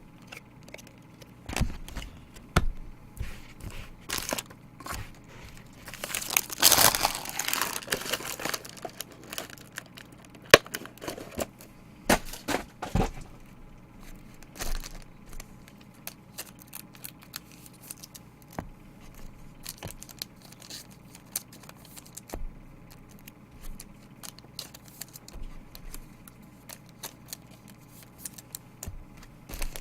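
Trading-card pack wrappers and packaging being torn open and crinkled by hand. There is a long tearing rip about six seconds in, then scattered crinkles and small clicks of handling.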